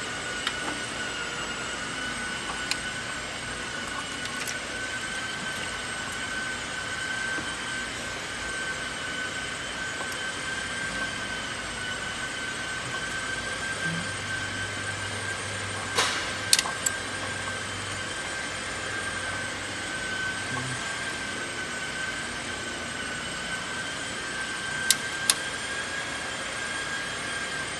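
A steady high-pitched whine from a machine running in the background, with a few sharp metallic clicks and taps, two close together past the middle and two more near the end, as hand tools work on the engine's timing parts.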